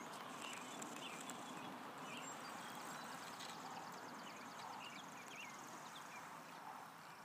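Quiet outdoor ambience with faint, scattered bird chirps and a brief, fast, high ticking trill midway.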